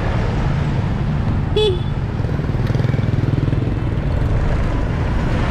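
Riding a motorbike through city traffic: a steady low rumble of engine and road noise, with one short horn beep about a second and a half in.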